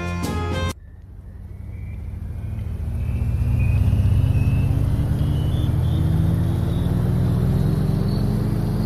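Background music cuts off abruptly about a second in. An engine hum then grows louder over the next few seconds and keeps rising slowly in pitch, like a motor vehicle gradually speeding up.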